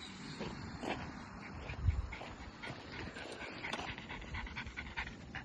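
Dog panting quickly in an even rhythm, with a single low thump about two seconds in.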